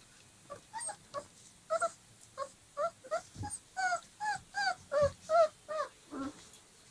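Dogo Argentino puppies, about 25 days old, yelping and squealing while they play-fight: a rapid string of short high-pitched cries, about three a second. The last cry, near the end, is lower.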